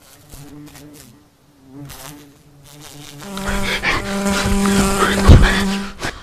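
Yellow jacket wasp buzzing in flight, faint and wavering in pitch at first, then loud and steady from about three seconds in as it comes close. There is a sharp thump about five seconds in, and the buzzing cuts off suddenly near the end.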